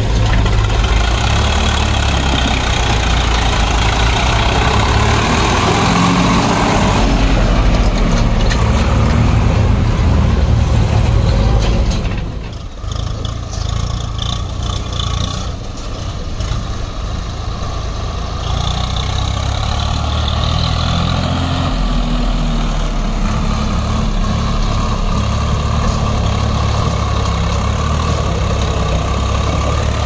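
Swaraj diesel tractor engine running steadily while hauling a trolley loaded with mud. About twelve seconds in the engine sound drops away abruptly, then builds back up a few seconds later.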